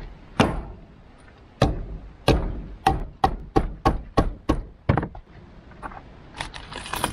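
A knife being hammered into a green coconut with a piece of wood to open it: a series of about ten sharp knocks. The knocks come faster in the middle, then fade to a few lighter taps near the end.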